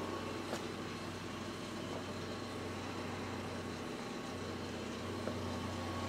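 Steady low electrical hum and fan noise from powered-on arcade and jukebox machines, with a few faint clicks.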